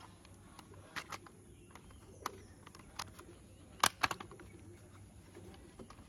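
Hard plastic toy car parts clicking and tapping as the chassis and body shell are handled and fitted together: a few scattered sharp clicks, the loudest just before four seconds in.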